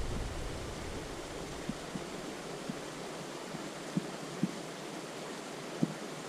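Steady outdoor background hiss with about half a dozen faint, short taps scattered through it.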